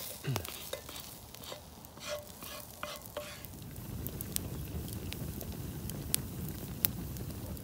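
A spoon stirring and scraping in a metal pot of rabbit and vegetable stew cooking over a campfire, with the food sizzling. Scrapes and clicks fill the first few seconds, then give way to a steadier, even noise.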